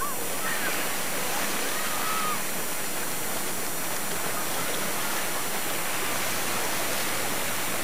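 Steady outdoor rush of wind and water on an open harbour.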